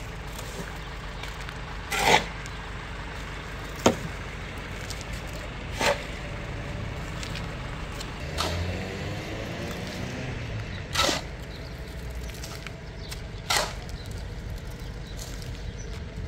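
A steel shovel scraping through wet cement mix on the pavement and tipping it into a steel wheelbarrow, in about five separate strokes a few seconds apart, over a steady low hum.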